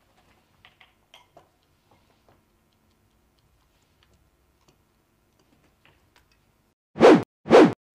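Faint scattered clicks, then about seven seconds in three loud, short whooshes about half a second apart.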